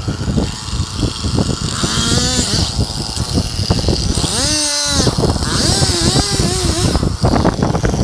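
Chainsaw making the back cut through a maple trunk to fell it. It runs with a rapid rattling note whose pitch rises and falls a few times.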